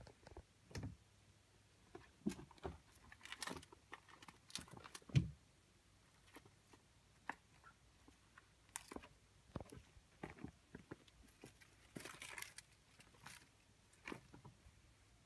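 Ragdoll kittens playing with a feather wand toy and a ball on a woven rug: irregular soft thumps, scratches and rustles of paws and toys, with one louder thump about five seconds in.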